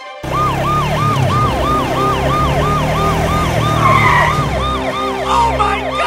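Police siren sound effect in a fast yelp, rising and falling about three times a second, over a low steady hum.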